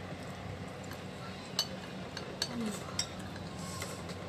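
A metal fork clinking against a bowl three times, over a steady low background hum.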